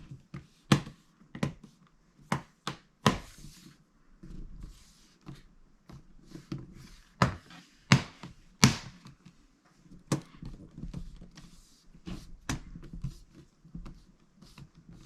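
Plastic case panel of an HP Pavilion convertible laptop being pressed back onto the chassis, its clips snapping into place: a series of sharp, irregularly spaced clicks and snaps with soft handling rustle between them.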